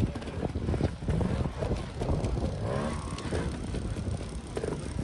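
Trials motorcycle engine revving in uneven short blips as the bike climbs over rocks.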